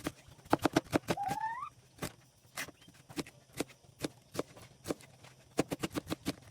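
Kitchen knife chopping an onion on a cutting board: a run of sharp knocks, fast and close together about half a second in, then an uneven two or three chops a second.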